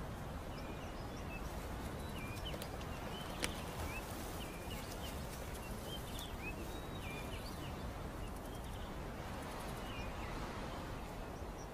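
Open-air ambience: a steady hiss with many short, high chirps of small birds scattered throughout, and one sharp click about three and a half seconds in.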